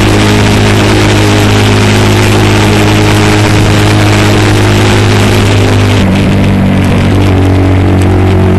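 Bobber motorcycle engine running at a steady pace under way, mixed with wind and road rush. About six seconds in the rush eases and the engine note shifts.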